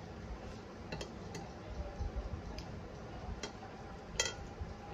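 Eating with the hands from stainless steel plates: scattered light clicks of fingers scraping and mixing rice against the steel, with one louder, briefly ringing metallic clink about four seconds in.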